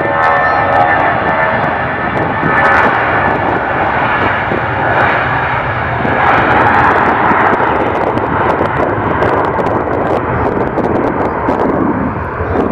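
Airbus A319-131's IAE V2500 turbofan engines running at taxi power as the jet taxis close by: a steady jet rumble, with a whining tone in the first few seconds.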